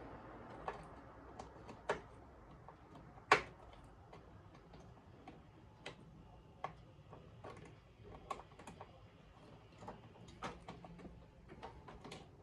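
Scattered light clicks and taps of computer parts being handled, at an uneven pace, with one sharper click about three seconds in.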